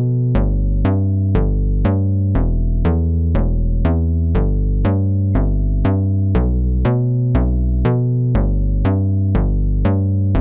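Electronic music: sharp synthesizer notes struck about twice a second over a shifting bass line, with a drum-machine beat.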